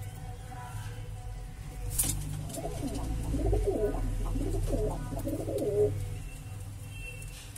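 Domestic pigeon cooing: a low, warbling coo lasting about three seconds, starting about two and a half seconds in, over a steady low hum.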